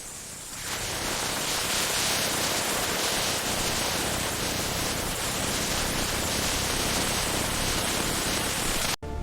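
A steady, even hiss like static. It swells in during the first second and cuts off abruptly near the end.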